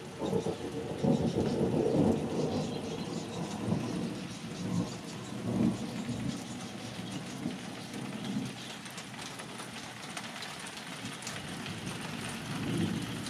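Thunder rumbling, loudest in the first two seconds, dying down through the middle and swelling briefly again near the end, with rain pattering throughout.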